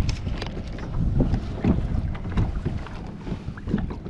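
Wind buffeting the microphone on a kayak, a gusty low rumble, with water lapping and small irregular knocks and clicks from handling gear on the boat.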